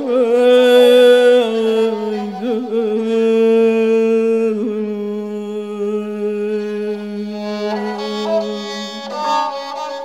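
Persian classical saz o avaz music in the Dashtestani mode: one long melodic note, wavering quickly in ornament for about the first second and a half, then held steady for several seconds. Near the end other notes come in and the sound fades.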